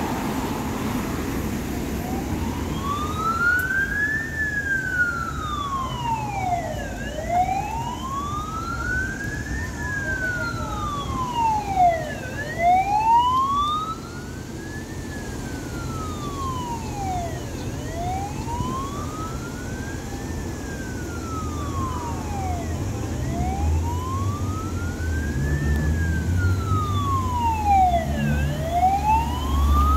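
Siren of a Hong Kong Fire Services rapid response paramedic vehicle sounding a slow wail, rising and falling about every five seconds, starting a couple of seconds in. Under it, the vehicle's engine and street traffic rumble, getting louder near the end as the car pulls out.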